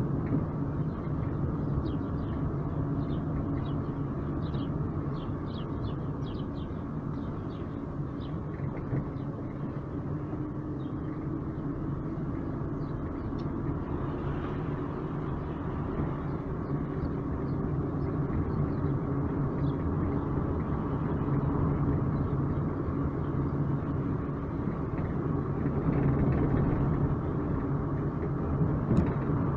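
Vehicle engine running as it drives, a steady low hum with road noise; its pitch rises slowly about a third of the way in. Short high chirps come and go over the first ten seconds or so.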